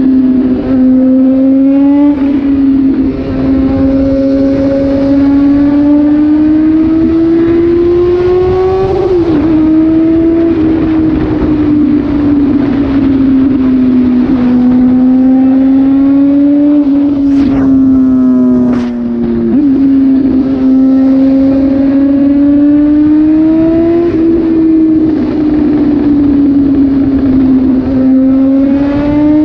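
Suzuki GSX-S750's inline-four engine running loud through an SC-Project exhaust tip with the dB killer removed, while riding. The engine note rises and falls with the throttle and drops briefly a few times.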